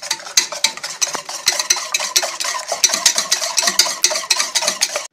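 Wire whisk beating eggs and sugar in an enamel pot: a rapid, steady run of clicking strokes as the wires hit the pot's sides and bottom.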